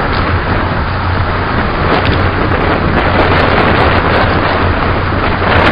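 Wind buffeting the microphone, a steady loud rush with a low rumble, with a few faint handling clicks.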